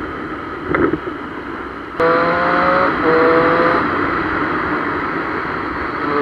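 Triumph Street Triple 765 inline-three motorcycle ridden at speed, engine note mixed with wind on the on-board camera. It gets suddenly louder about two seconds in.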